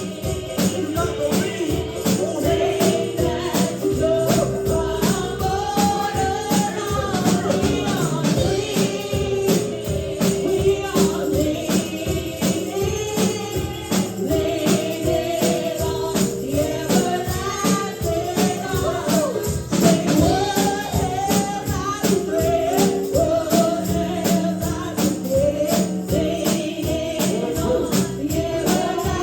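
Gospel praise and worship music: voices singing over a steady tambourine beat.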